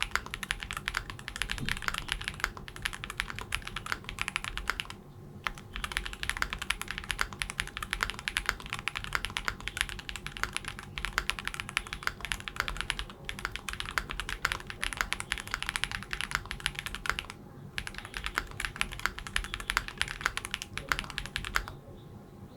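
Fast typing on a Class65 mechanical keyboard with JWK Peach Blossom switches, a POM plate and GMK Kaiju keycaps: a dense, rapid clatter of key strikes. It breaks off briefly twice and stops shortly before the end.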